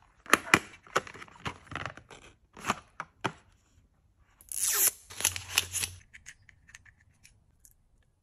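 Close-up unboxing sounds of a paper box of small plastic drink bottles being opened and handled: a quick run of sharp taps and crinkles, then a longer scraping, tearing sound about halfway through, and a few faint clicks after it.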